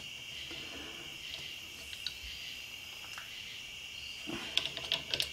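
Ratchet wrench clicking in a quick, irregular run near the end as the nut holding a new diamond wheel on the cutter grinder's spindle hub is tightened. A steady faint high-pitched hiss sits underneath throughout.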